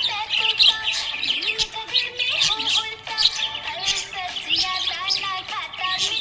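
Budgerigars chirping and warbling in a dense, unbroken chatter.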